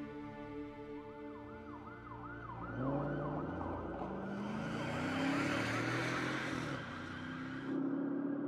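Police siren in a fast yelp, rising and falling about three times a second. It fades in about a second in over fading background music. A lower, slower siren wail joins about three seconds in.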